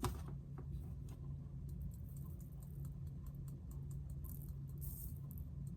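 Faint, scattered light tapping and small ticks as a container of white glitter is tapped to sprinkle the glitter, with brief soft rattles of the glitter. A steady low hum runs underneath.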